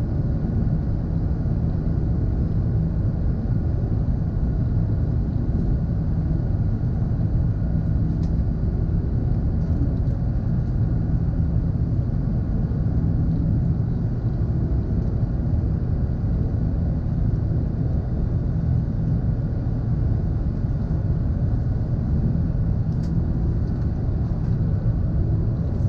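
Steady cabin noise inside an Airbus A380 in its climb after takeoff: a deep, even rumble of its Rolls-Royce Trent 900 engines and airflow, with a faint steady high tone.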